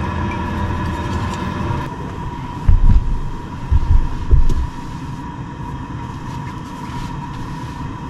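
A few heavy low thuds in the middle as a person sits down and settles onto a camper van's bench seat, over a steady hum with a high whine.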